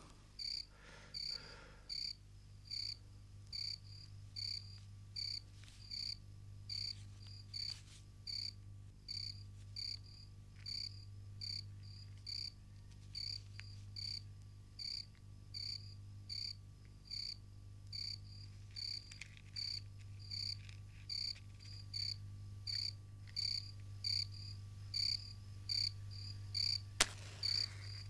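Rhythmic animal chirping, about three calls every two seconds, over a low steady hum, with a single sharp click near the end.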